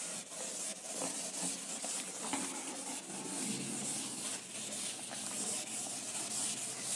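Handwriting: short, uneven scratching strokes of a writing tip rubbing across the writing surface as a solution is written out.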